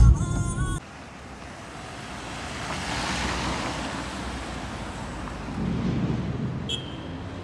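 Music cuts off under a second in, then a car drives past close by: tyre and engine noise swells to a peak about three seconds in and fades away. Near the end there is a brief high beep.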